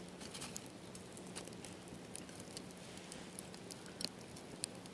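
Small wood fire crackling in a compact fire pit, with irregular sharp pops and snaps over a faint steady hiss.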